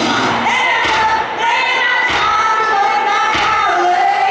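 A woman singing live through a concert PA, holding long notes over a pared-back rock band, with drum thumps now and then.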